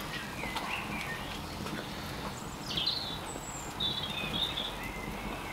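Birds chirping a few short, high calls, one sliding down in pitch about three seconds in, over a steady low outdoor background hiss.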